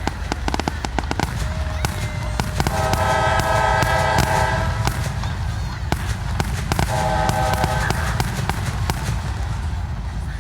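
Fireworks popping and crackling in quick, dense runs. A train's horn sounds twice over them, a long blast about three seconds in and another about seven seconds in.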